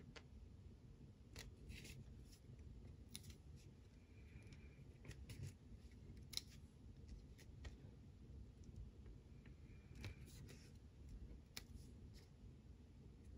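Faint scattered clicks and soft paper rustles of planner stickers being peeled and pressed onto the page with a pointed sticker tool and fingertips, over low room hum. The sharpest click comes about six seconds in.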